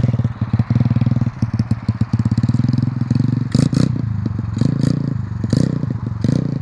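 125cc pit bike's single-cylinder four-stroke engine running steadily as the bike rides off across dirt, with short sharp crackles over it in the second half.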